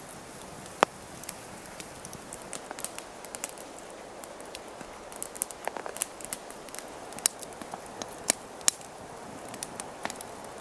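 Wood campfire crackling: irregular sharp pops and snaps over a steady hiss, the loudest snap about a second in.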